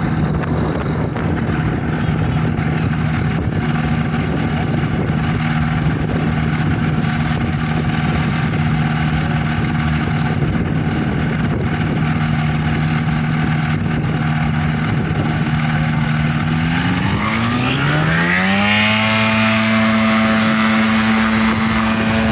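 Paramotor trike's engine and caged propeller running steadily at low throttle, then revving up smoothly about three quarters of the way through and holding at full power for the takeoff run.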